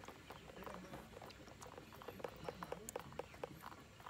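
Faint, irregular light clicks and ticks from handling a sugarcane larva with the fingers and a small metal tool.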